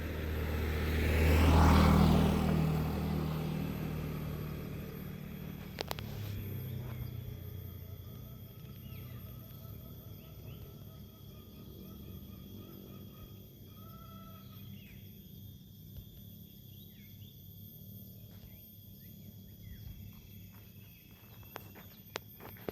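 A vehicle passes close by, its engine loudest about two seconds in and fading away over the next few seconds. Then a quieter background with faint, short high chirps.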